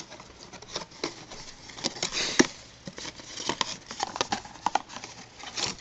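A toy figure's packaging being handled and opened by hand: scattered clicks, taps and short rustling scrapes, with one sharp louder click about two and a half seconds in.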